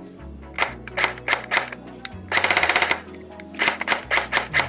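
Tokyo Marui AK47 Beta Spetsnaz electric airsoft gun test-firing after reassembly. It fires several single shots, then a rapid full-auto burst of about half a second midway, then a few more single shots: the reassembled gearbox is cycling.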